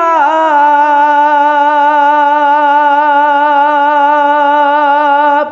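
A single voice in a Bengali Islamic gazal holding one long note for about five seconds with a slight waver, after a small dip in pitch at the start; it breaks off at the end.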